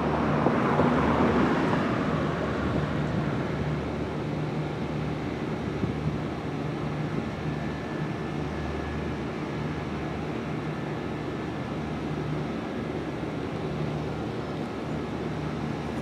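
Outdoor ambience once the electronic warning siren's voice announcement has stopped: the announcement's echo fades over the first couple of seconds, leaving a steady low rumble of distant traffic.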